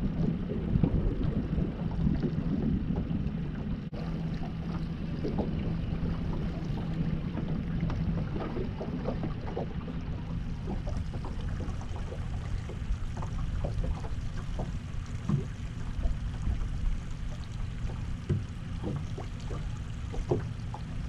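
Small fishing boat underway at low speed: its motor runs with a steady low hum while small waves slap against the hull.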